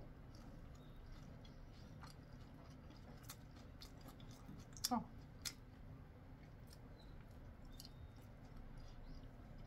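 Faint chewing of fried chicken gizzards, with small crunching clicks over a low steady hum. One short squeak falling in pitch comes about five seconds in.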